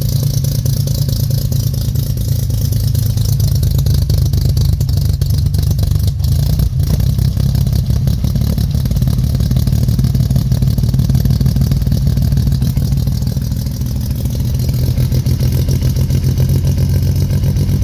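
1969 Jeep CJ5 engine running steadily just after a cold start, its first run after sitting about seven months.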